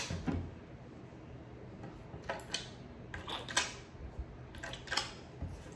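Small plastic toy pieces and a plastic tray clicking and rustling as slimy hands pick through them: irregular short clicks, a sharper one at the very start and a cluster a little past two seconds in.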